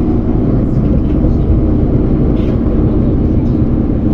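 Steady rumble of engine and road noise heard from inside a moving vehicle's cabin.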